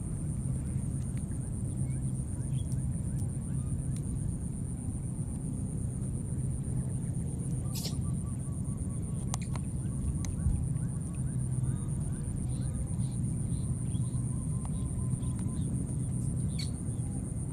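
Outdoor field ambience: a steady low rumble, a constant high-pitched insect drone, and a few faint short calls in the second half. Two sharp clicks come about eight and nine and a half seconds in.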